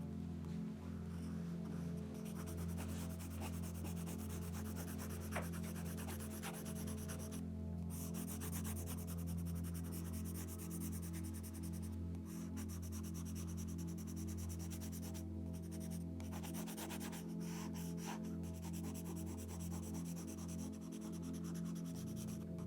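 Sketching strokes scratching and rubbing on paper, continuous with brief pauses where the tool lifts, over soft background music with steady low held tones.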